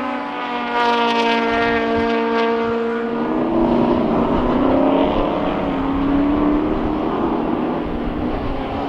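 Classic saloon racing cars passing at speed: one car's engine note falls in pitch as it goes by over the first three seconds, then another car's engine comes through, its pitch rising and falling as it is driven on the throttle.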